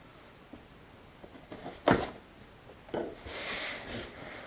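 Cardboard box and folded camouflage clothing being handled: a sharp knock about two seconds in, a softer one about a second later, then a brief rustle of fabric against cardboard.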